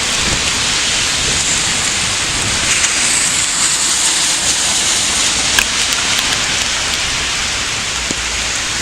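Heavy rain falling steadily, a dense even hiss of drops hitting the ground and surfaces, with a few faint drop clicks.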